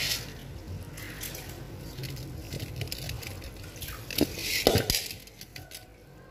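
A hand stirs a heap of wet live prawns in a metal pan, making wet squishing and scattered clicks. A few louder knocks of the pan come about four and a half seconds in.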